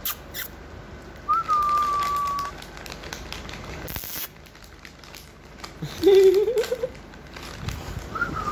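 Labrador retriever puppy whining as it begs: a long, thin, high whimper, then a lower, rising, wavering whine about six seconds in, and a falling whimper near the end. A plastic treat bag crinkles briefly about four seconds in.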